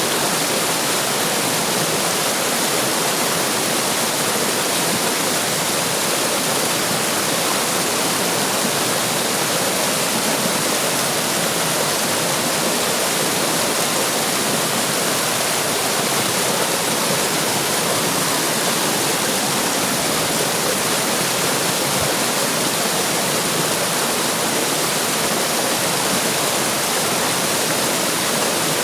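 Running water in a stream, rushing with a steady, even hiss.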